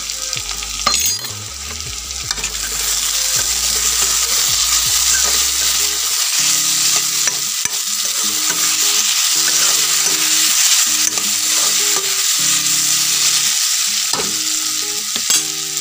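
Wax gourd pieces sizzling as they fry in hot oil in a wok while being stirred, with a few sharp clicks of the utensil against the pan. The sizzle grows louder about two and a half seconds in and then holds steady.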